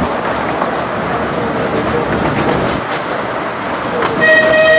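A 15-inch gauge miniature train running, heard from an open carriage: a steady rumble of wheels on the track. Just past four seconds in, the locomotive sounds a steady toot, the loudest sound here.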